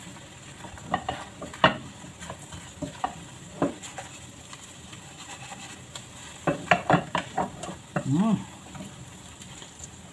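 Wooden spoon stirring and scraping chicken pieces and fried garlic in a sizzling non-stick pan, with a steady low sizzle and scattered knocks of the spoon against the pan, a quick run of them a little past halfway. A brief pitched sound rises and falls about eight seconds in.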